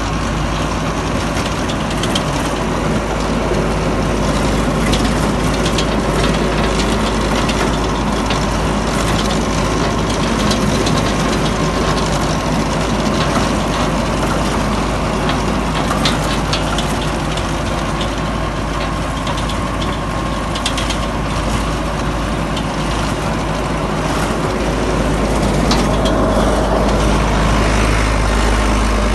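Tractor engine running steadily under load while driving a Yodha super seeder, whose rotor blades churn the soil. Scattered sharp clicks and knocks come through the dense, steady noise.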